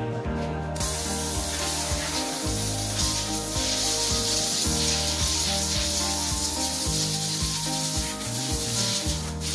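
A steady loud hiss of compressed air from a handheld air gun on a hose, starting about a second in and cutting off just before the end, over background music.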